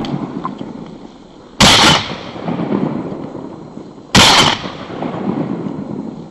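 Two loud shotgun shots about two and a half seconds apart, each followed by a long rumbling tail that fades away.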